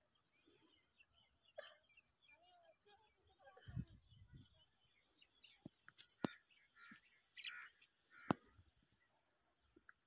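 Near silence outdoors, with faint scattered bird chirps, a dull thump about four seconds in, and two sharp clicks in the second half.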